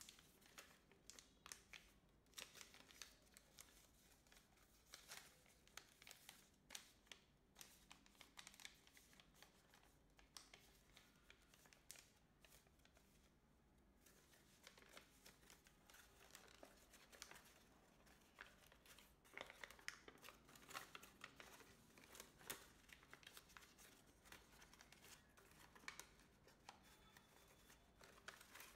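Sheet of colour paper being folded and creased by hand: faint, frequent crinkles and rustles, with a short lull in the middle.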